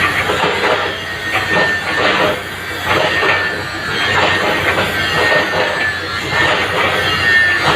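CAT 313 hydraulic excavator working: the engine runs under load beneath repeated clanking and crunching, with a high metallic squeal running through it.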